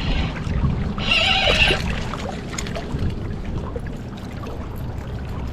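Low rumbling wind and water noise on the microphone, with a brief high wavering squeal about a second in.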